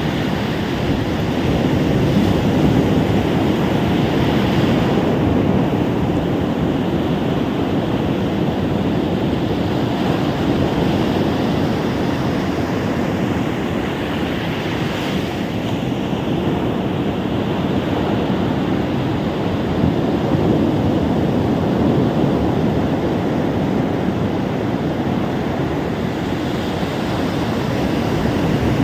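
Ocean surf washing onto a sandy beach: a continuous rush of waves that swells and eases every few seconds, with some wind rumble on the microphone.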